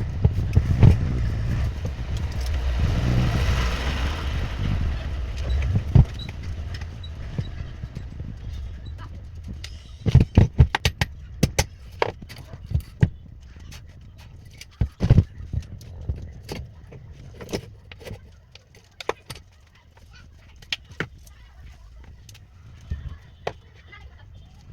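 A rumbling noise swells and fades over the first few seconds, then irregular sharp clicks and knocks follow, as of metal and plastic parts being handled during a stand fan repair.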